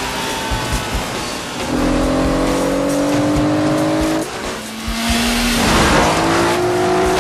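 Car engines revving hard under acceleration, the pitch climbing steadily, dropping about four seconds in, then climbing again. Tyres scrabble on a dirt and gravel track, with a burst of spraying gravel and dirt about five seconds in.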